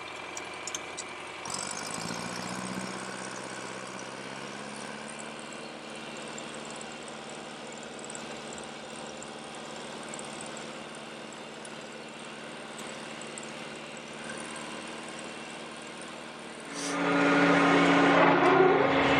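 Tractor engine running with its PTO-driven rotary cutter (bush hog) engaged; about a second and a half in the engine note changes and firms up as the load comes on, then runs steadily. Near the end a much louder engine sound starts abruptly.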